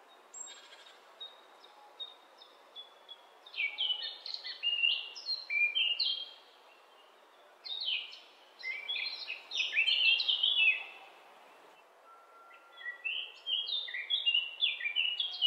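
Birdsong: a few short high calls, then three long runs of rapid high notes, many falling in pitch, starting about a third of the way in, about halfway, and near the end. The song sits over a faint steady background hiss.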